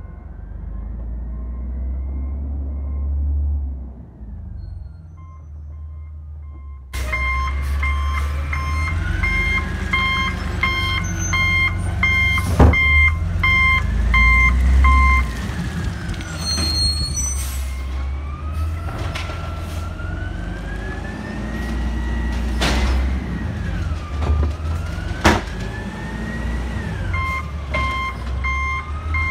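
Automated side-loader garbage truck working: its diesel engine runs and revs, with a whine that rises and falls. A warning beeper sounds in a steady on-off pattern from about a quarter of the way in to about halfway, then starts again near the end, and there are a few sharp knocks.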